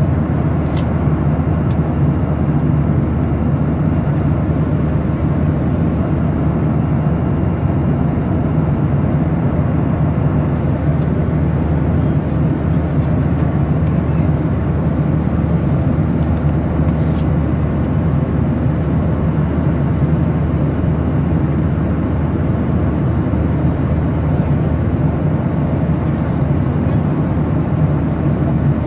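Steady cabin noise of a Boeing 737-800 jet airliner in flight: a constant low rumble of engine and rushing airflow heard from inside the cabin at a window seat over the wing.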